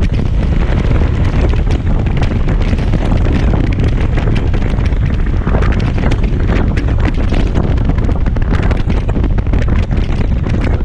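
Loud, steady wind rush and buffeting on the microphone of a Kymco Xciting 250i scooter riding at speed.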